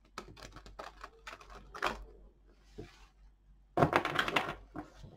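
A deck of tarot cards being shuffled by hand: a quick run of light card clicks and flicks, with a louder flurry about four seconds in.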